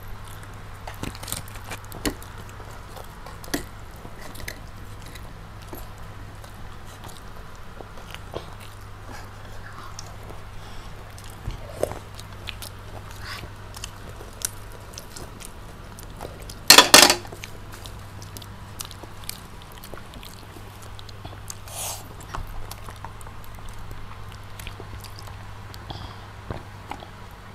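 Close-up eating sounds: crispy breaded fried chicken being bitten and chewed, with many small crunches and clicks over a steady low hum. A single loud, short clatter comes about two-thirds of the way through.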